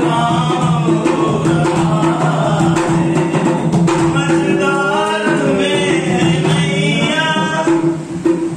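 A group of men singing a Hindu devotional bhajan together, voices rising and falling over a steady low drone, with dholak drum strokes beneath.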